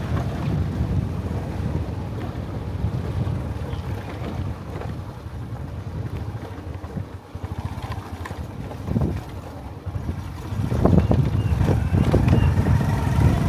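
A moving vehicle's engine and road rumble, with wind buffeting the microphone, louder for the last few seconds.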